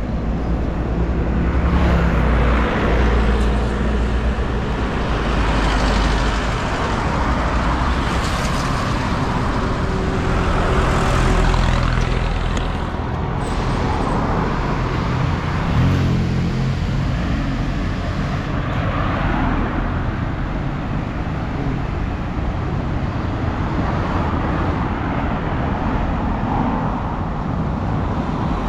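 Busy road traffic: car and truck engines and tyres running past in a steady, loud rumble.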